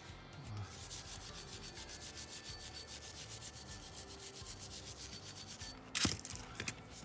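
Wire brush scrubbing the steel big end of a Dnepr MT-11 connecting rod and its cap, in fast back-and-forth strokes of about six a second, to clean off deposits before new bearing inserts go in. A sharp knock about six seconds in.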